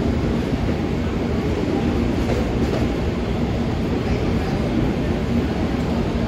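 Standing passenger trains idling at a station platform: a steady low rumble with a faint steady hum.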